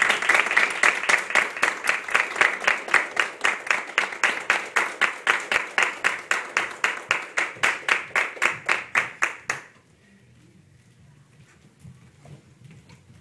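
A small audience applauding, the claps falling into a steady rhythm of about four a second, then stopping abruptly about three-quarters of the way through; after that only faint room sound remains.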